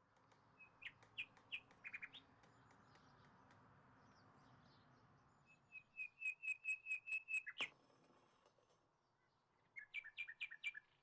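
Small songbirds chirping: a few quick chirps, then a rapid run of about a dozen even notes in the middle, and another quick burst of chirps near the end, with a sharp click as the run stops.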